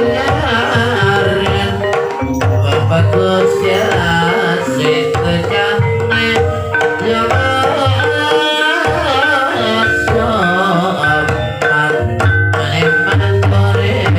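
Ebeg dance music: kendang hand drums beating a busy, driving rhythm under the steady pitched notes of gamelan instruments, with a wavering melodic line above.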